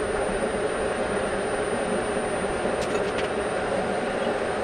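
Bridgeport milling machine running while its spindle drills the hole positions around a cylinder cover casting, sped up to four times speed: a steady mechanical running noise, with a few faint clicks about three seconds in.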